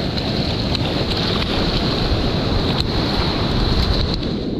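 Wind buffeting the microphone over the steady wash of surf, foamy water running up the beach around the feet.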